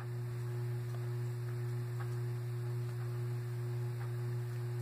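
A steady low hum with a faint, constant higher tone above it.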